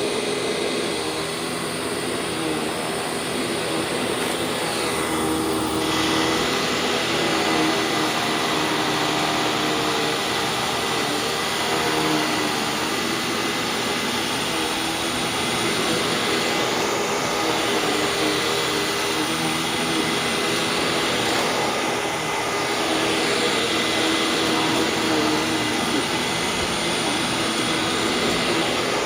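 Hoover WindTunnel WidePath bagged upright vacuum cleaner running steadily, its motor whining, as it is pushed over a sandy rug.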